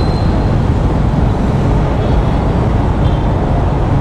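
Steady low rumble of motorcycle and other vehicle engines creeping through a traffic jam, heard from among the motorcycles, with a few faint short high beeps.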